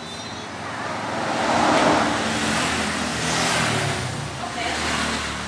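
Road traffic passing: a vehicle engine and tyre noise swell loudest about two seconds in and again a little later, then fade.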